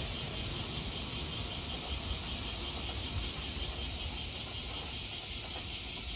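A steady chorus of cicadas, a pulsing high buzz, over a low rumble.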